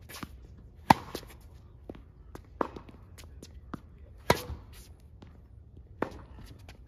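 Tennis rally: a Babolat Pure Aero racket sharply strikes the ball twice close by, about a second in and again past the middle, with the opponent's quieter returns in between, about every 1.7 s. Fainter ball bounces and shoe steps on the hard court come between the hits.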